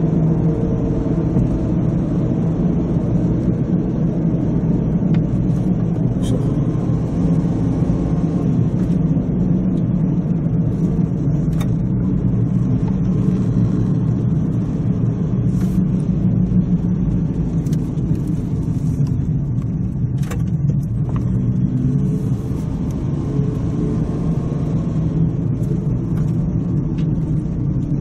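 Car cabin noise while driving: a steady engine and road rumble, with a few faint ticks and rattles. It eases slightly near the end as the car slows.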